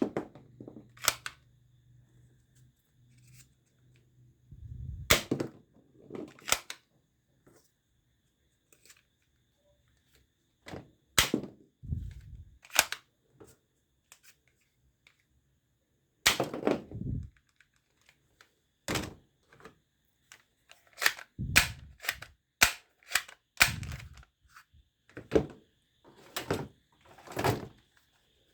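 Toy guns snapping and clicking as they are fired or cocked: about twenty sharp, short cracks at uneven intervals, some with a dull thud under them, and a quick run of them in the last third.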